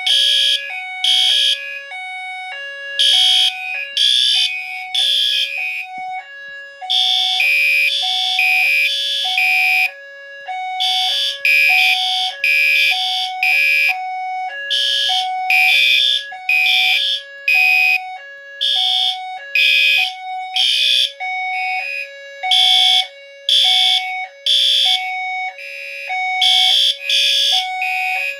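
System Sensor and Gentex fire alarm notification appliances sounding together: pulsing horn blasts over a steady hi-lo tone that alternates between two pitches about once a second. The system is in alarm after a conventional smoke detector was tripped with test aerosol.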